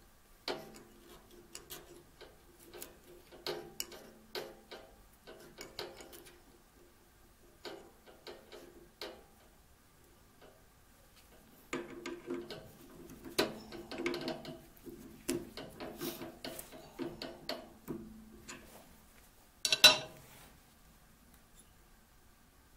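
Clicking and metallic rattling of a drill press chuck being worked by hand to change the drill bit, in uneven bursts with pauses. One sharper, louder click comes near the end.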